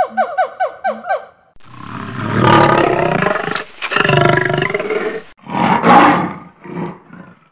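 A male lion roaring: two long, loud roars followed by a series of shorter grunts that trail off. A quick run of short, falling chirping calls comes just before, in the first second.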